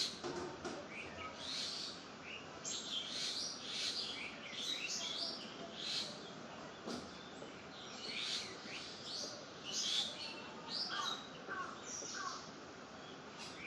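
Several wild birds chirping and calling over one another in quick, short calls, over a steady background hiss. A few lower, short notes come about eleven seconds in.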